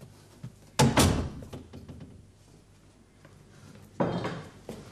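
A door being shut with a slam: two heavy knocks in quick succession about a second in. A softer, shorter rushing noise follows about four seconds in.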